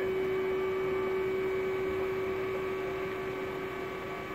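Hydraulic pump running with a steady whine while it tilts up a trailer deck loaded with a stack of hay bales.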